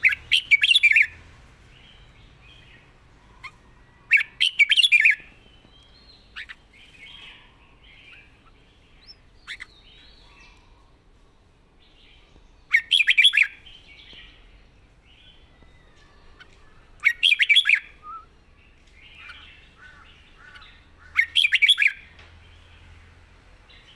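Red-whiskered bulbul singing: five short, loud song phrases, each under a second and several seconds apart, with soft chattering notes in between.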